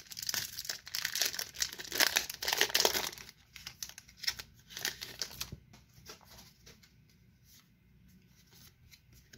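Foil wrapper of a Pokémon trading-card booster pack crinkling and tearing as it is ripped open by hand, dense for about the first three seconds. Then quieter, scattered crinkles as the cards are pulled out, dying down to faint rustles about six seconds in.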